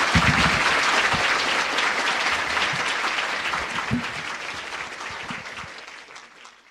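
Live audience applauding at the end of a stand-up comedy routine. The clapping fades out gradually over the last few seconds.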